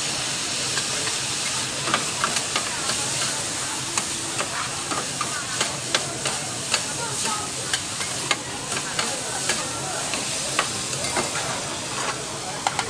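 Noodles and vegetables sizzling on a flat steel teppanyaki griddle with a steady hiss. Metal spatulas clack and scrape sharply and often against the plate as the noodles are tossed and turned.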